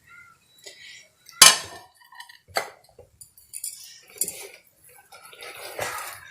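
A spoon clinking and scraping against a bowl while spice powders and yogurt are mixed together for a marinade. A few sharp clinks, the loudest about one and a half seconds in, with softer scraping in between.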